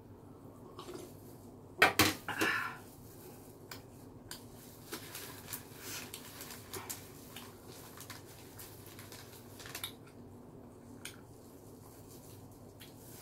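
A glass jar set down on a metal tray table, with a cluster of loud knocks about two seconds in. Then soft clicks and crinkling of plastic gloves and paper as a pizza slice is pulled free, dying away about ten seconds in.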